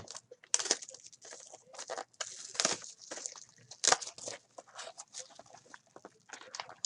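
Plastic wrapping crinkling and tearing as a trading card box is opened: a dense run of irregular crackles and rustles.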